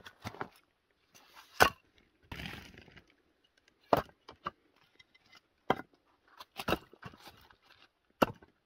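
Split firewood logs knocking against each other as they are set down and stacked by hand, about six sharp wooden clunks a second or two apart, with quieter rustling between.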